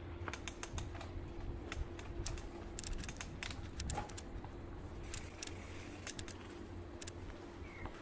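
Mountain bike rolling slowly along a leaf-covered forest trail: irregular clicks and crackles from the tyres on leaves and twigs and from the bike rattling, over a low rumble and a faint steady hum.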